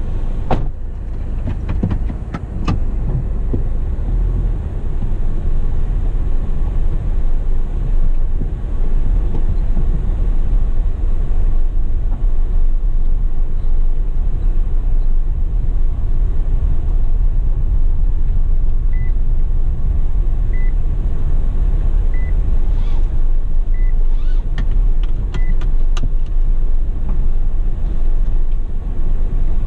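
A car driving, its engine and road noise making a steady low rumble, with a few faint short beeps in the second half.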